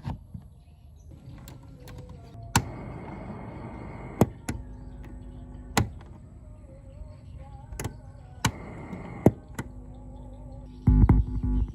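A series of sharp single clicks, about eight spread irregularly, over a faint steady hum. Loud electronic music starts near the end.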